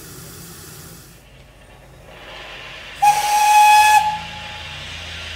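A small saddle-tank steam locomotive's whistle gives one steady, shrill blast of about a second, a little past halfway, over a hiss of escaping steam.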